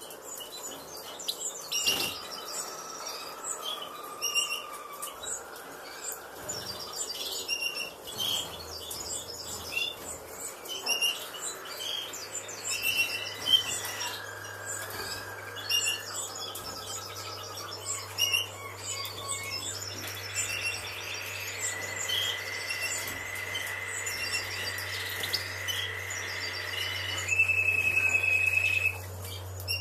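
European goldfinches in a breeding cage chirping and twittering, with many quick high chirps throughout. A steady low hum starts about a quarter of the way in, and a held high tone is the loudest sound near the end.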